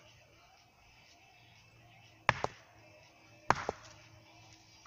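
An axe striking a short upright log on a wooden chopping block: two sharp chops about a second apart, each followed at once by a lighter knock. The log is left standing unsplit.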